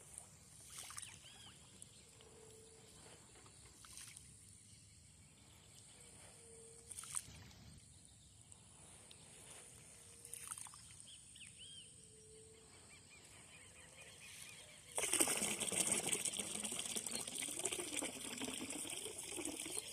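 Quiet outdoor ambience with a faint low call repeating about every two seconds and a few short clicks. About fifteen seconds in, a much louder continuous water noise like splashing or pouring begins and keeps going.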